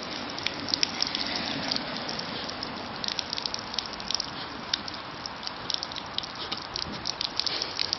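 A jet of water gushing and spraying steadily, broken by many short sharp splashes as a dog snaps and bites at the stream.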